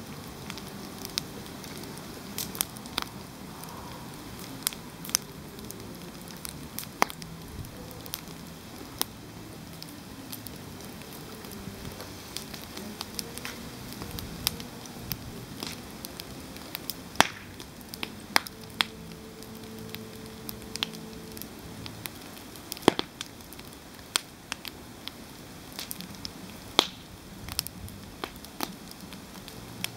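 Campfire burning, with irregular sharp pops and cracks from the wood over a low steady hiss.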